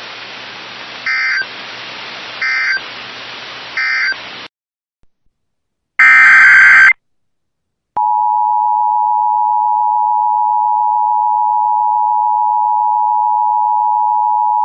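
Emergency Alert System SAME data bursts over radio hiss: three short warbling bursts about a second and a half apart, marking the end of the previous message. A louder, second-long data burst follows about six seconds in. From about eight seconds in comes the steady two-tone EAS attention signal, 853 and 960 Hz sounding together.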